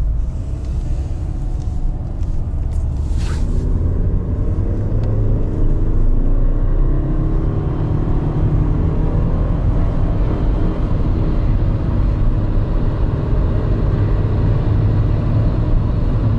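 Stage 3 tuned Skoda Octavia A5 accelerating on a test drive with its 09G six-speed automatic, the engine note rising under load over steady road rumble. A short click sounds about three seconds in.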